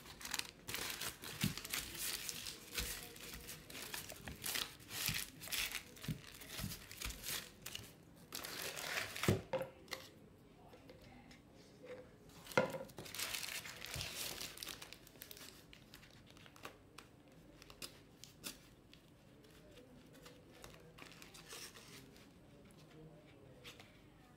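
Crumpled tissue paper crinkling and rustling as it is handled and pressed around a glued canvas. It is busiest in the first half, with a few sharp knocks, and quieter later.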